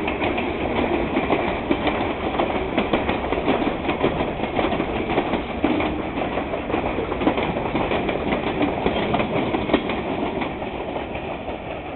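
Freight cars rolling past: covered hoppers and a tank car with steel wheels clicking and clattering on the rails. The sound fades near the end as the last cars go by.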